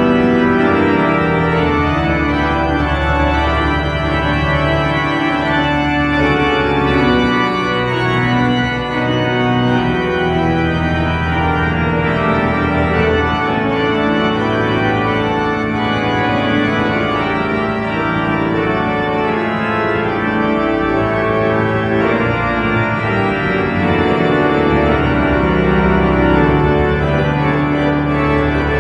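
Church organ playing a postlude at the close of the service: sustained full chords over a steady low bass.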